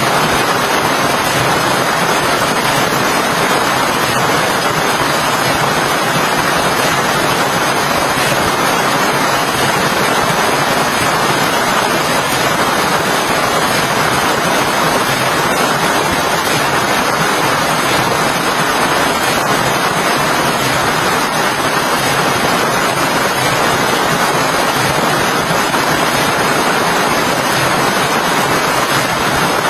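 Steady, unbroken rain: a constant, even hiss of heavy rainfall with no separate drops or knocks standing out.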